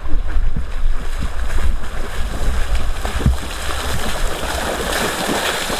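Water splashing and churning as people wade and run through a shallow river, the splashing thickening toward the end, over a steady low rumble of wind on the microphone.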